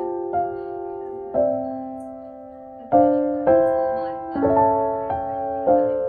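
Slow, gentle solo piano music: soft chords struck about once a second, each ringing and fading before the next.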